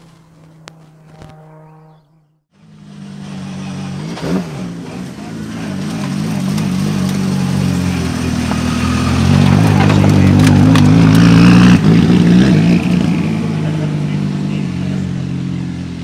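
Audi Sport quattro S1 Group B rally car's engine running close by, getting louder as it rolls past and holding a rough, uneven note at its loudest near the middle, with one sharp pop about four seconds in. The first couple of seconds are quieter, with a brief gap before the engine comes in.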